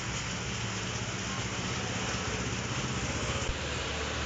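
Heavy monsoon rain falling steadily onto a flooded street, with a small engine idling underneath.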